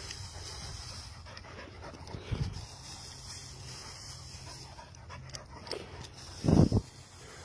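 A black-and-white dog panting, with a brief loud burst near the end.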